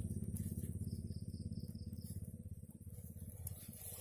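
Night outdoor ambience: a low, fast, even pulsing drone that fades over the few seconds, with a steady high insect buzz and a short run of insect chirps about a second in.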